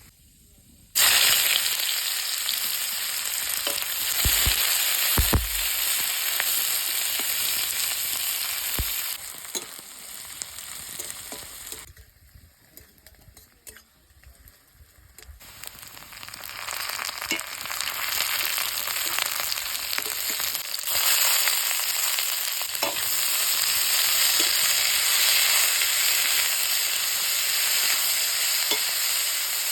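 Banana blossom curry frying in a pan, sizzling while it is stirred, with scattered knocks and scrapes of the spatula against the pan. The sizzle starts suddenly about a second in, dies away for a few seconds about halfway through, then builds back up.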